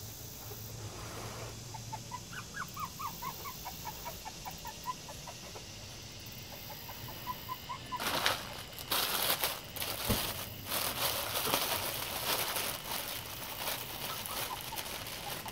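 Plastic packaging crinkling and rustling as a wrapped light is handled, starting about halfway through and the loudest sound. Before it comes a string of short, high animal cries, a few a second.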